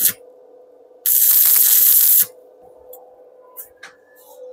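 Stick (MMA) arc welding at about 85 amps: the arc hissing and crackling, cutting off right at the start, then striking again for a burst of just over a second. Afterwards come a few light clicks and knocks as the electrode holder is put down, over a steady faint hum.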